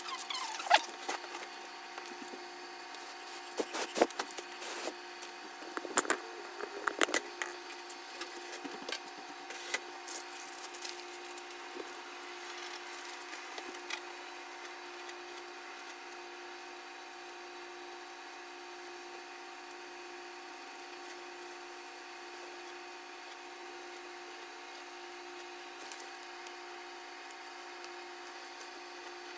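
Quick clicks and knocks of objects being handled on a wooden table, thinning out about halfway through, over a steady hum with a faint hiss that continues alone afterwards.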